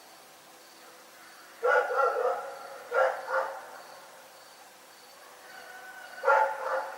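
A dog barking in bouts: a run of barks about a second and a half in, two more a second later, and a final pair near the end.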